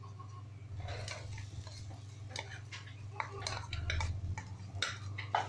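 Mashed boiled potatoes being scraped out of a plastic bowl into a nonstick kadhai: scattered light taps and knocks of the bowl and spoon against the pan, over a steady low hum.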